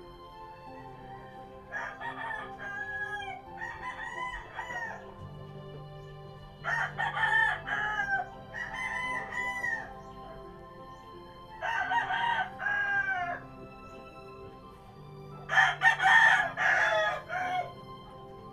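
Roosters crowing several times, a few seconds apart, each crow ending in a falling tail, over a steady low hum.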